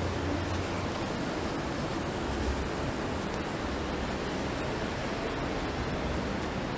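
Steady outdoor noise of traffic on an elevated highway overhead: an even hiss over a low rumble, with no distinct events.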